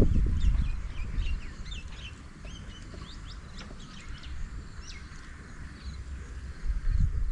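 Small songbirds chirping and twittering in many short, quick calls. A low rumble runs underneath, loudest at the start and again near the end.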